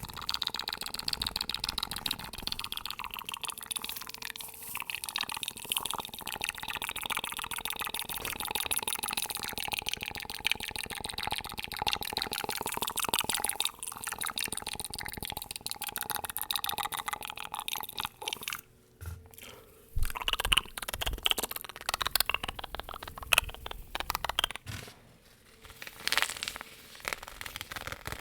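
Fast, aggressive ASMR trigger sounds: a dense run of quick taps and crackles close to the microphone, breaking off briefly twice in the second half.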